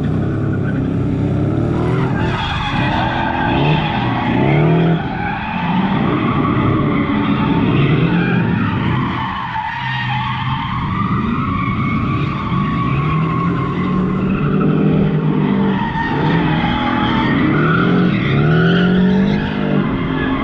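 Two BMW cars drifting: their engines rev up and drop back again and again, with tyres skidding and squealing.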